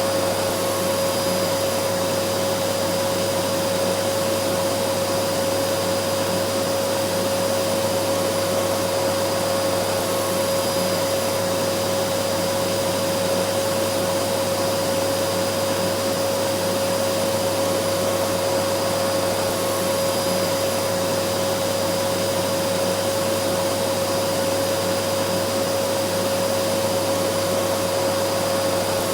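Vacuum cleaner running steadily: an even rush of air with a constant motor tone.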